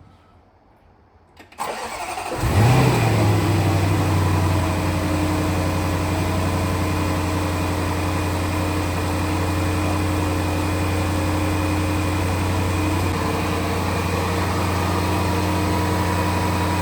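Supercharged 5.0-litre V8 of a Range Rover Sport being started: a click, brief cranking, then the engine catches about two seconds in with a quick rev flare and settles to a steady idle.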